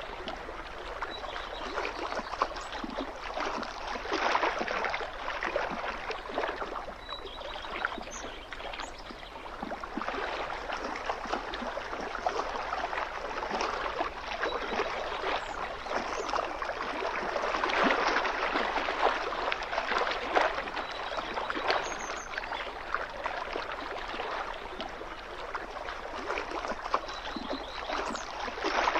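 Lake water lapping and splashing against the shoreline, a dense trickly patter that swells louder and softer every few seconds. A few faint short bird chirps sit above it.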